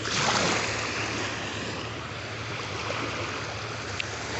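Ocean wave surging in and splashing at the start, then the steady wash of surf.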